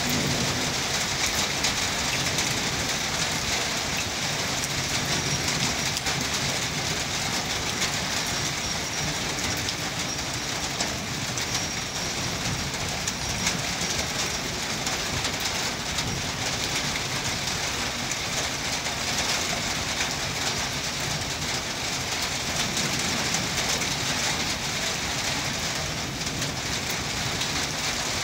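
Indian Railways passenger coaches rolling past on the track, a steady low rumble under an even hiss of rain.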